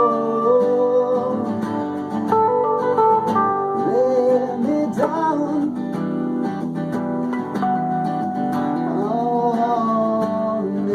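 An instrumental passage of an acoustic folk song: acoustic guitar playing, with a melody line of held notes that slide in pitch.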